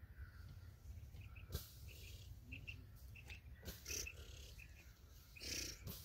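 Rustling of wheat stalks and netting in short swishes as people move through the netted crop, over a low wind rumble on the microphone, with a few faint, short high chirps in the middle.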